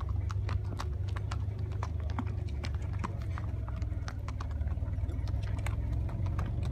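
Horse hoofbeats on sand, a quick run of short sharp clicks from a horse moving at a steady gait, over a steady low rumble.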